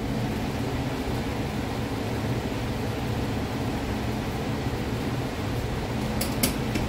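Steady hum of an electric fan or blower running, with two short clicks near the end.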